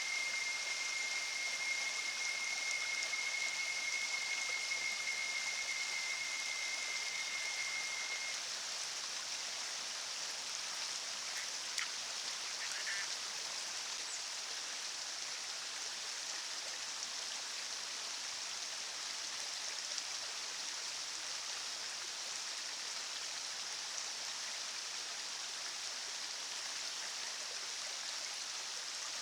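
Steady rushing of a forest river, an even hiss with no change. A single high steady tone sounds over it and stops about eight seconds in, and a few faint ticks come a few seconds later.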